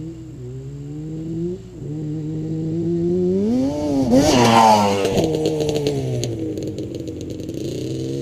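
Yamaha Banshee ATV's two-stroke twin engine revving hard as it accelerates, its pitch dropping at a gear change about a second and a half in, then climbing to its highest and loudest revs around the middle before easing off. A rattling clatter follows the peak.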